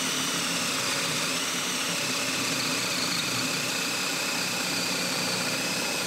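Milwaukee brushless drill driver in drill mode, high gear, boring a 1 1/8-inch spade bit into a softwood board under heavy load on a 2 Ah battery. Its motor gives a steady whine over the rough cutting noise of the bit, sagging slightly in pitch in the first couple of seconds as the bit bites.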